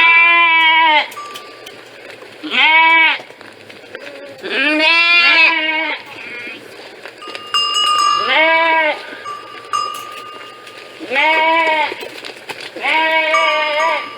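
Sheep bleating: six separate calls of about a second each, rising and falling in pitch, the one near the middle longer and quavering.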